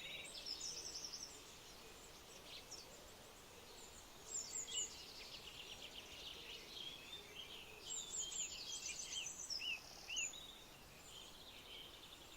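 Songbirds singing: faint bursts of high, fast chirping notes, one about four seconds in and a longer run from about eight to ten seconds, over a steady background hiss.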